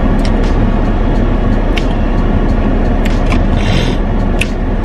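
Steady low rumble inside a car cabin, with scattered light clicks and a brief rustle about three and a half seconds in.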